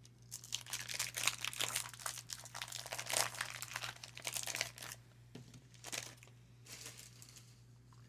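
Trading card pack wrapper crinkling and tearing as a pack is opened by hand: a dense crackle for about five seconds, then two shorter crinkles near the end.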